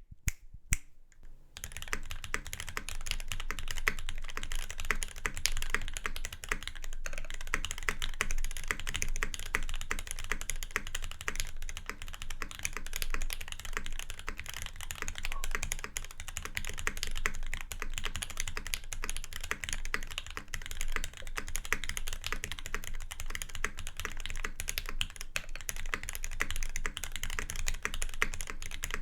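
Custom mechanical keyboard being typed on steadily: Gateron Ink Black linear switches lubed with 3204, on an aluminium plate in a Perry Jinsoul Proto case, under GMK keycaps, with Durock stabilizers not yet tuned. A few single keystrokes come first, then continuous typing from about a second and a half in.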